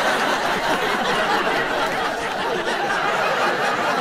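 A large seated audience laughing together, a dense, steady wash of many laughing voices.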